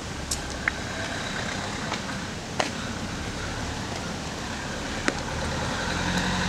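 Street ambience: a steady low rumble of distant traffic, with a few sharp clicks.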